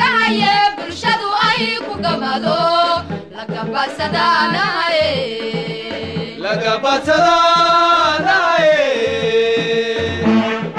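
Background music: a sung melody holding long, drawn-out notes over a steady drum beat.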